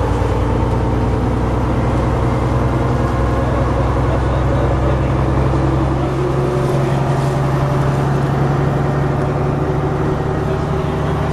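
Diesel engine of an MCW Metrobus double-decker, a Gardner, running steadily at one constant pitch, with a slight dip in level about halfway through.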